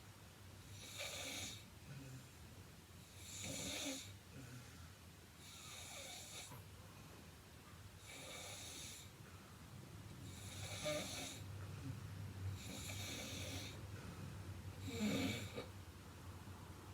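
A heavily built woman snoring in her sleep: a rasping snore on each breath, seven in all, about every two to three seconds, the last one loudest.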